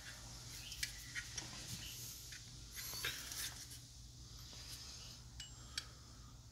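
Faint scattered clicks and light scraping from small plastic parts being handled: the active grille shutter actuator's plastic case and arm turned over and fitted together by hand.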